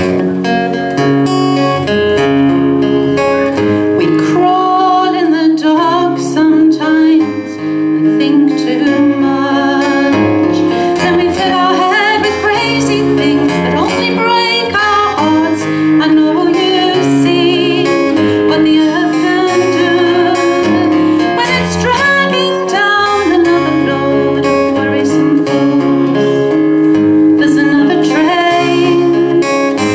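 A woman singing a folk song, accompanied by a strummed acoustic guitar.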